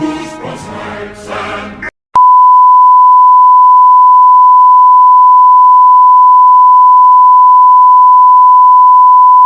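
Choral music cuts off abruptly about two seconds in. After a moment of silence, a loud, steady electronic beep tone at a single high pitch starts and holds unbroken, like a broadcast test or off-air tone.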